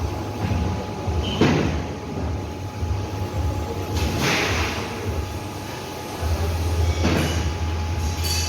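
Industrial machinery running with a steady low hum and a faint constant tone, broken by short hissing bursts about every three seconds.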